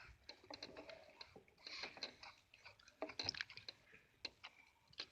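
Faint, irregular small clicks and taps.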